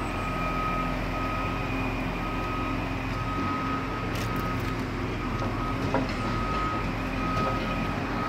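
Large marina boat-stacking forklift running with a steady engine drone, its warning beeper sounding in repeated high beeps as it handles a pontoon boat on its forks.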